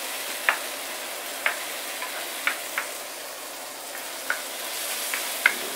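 Minced pork, ginger, garlic, spring onion and fermented soybean sizzling in hot oil in a wok while being stirred with a wooden spatula. A few short scrapes and taps of the spatula against the pan are scattered through the sizzle.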